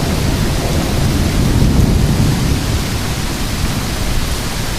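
Heavy thunderstorm rain pouring steadily under a low rumble of thunder that swells slightly about a second and a half in.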